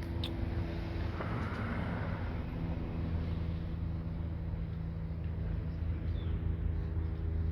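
Street traffic: a steady low engine hum, with a vehicle passing about a second in.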